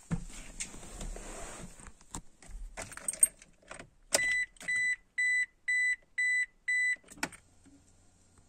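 Keys jangling and rustling in a car's cabin with a sharp click, then the car's warning chime beeping six times, about two a second, as the ignition is switched on. A click near the end is followed by a faint steady low hum.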